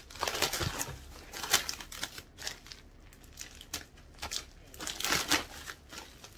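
Packaging crinkling and rustling in irregular bursts as packets are handled, loudest about a second and a half in and again around five seconds in.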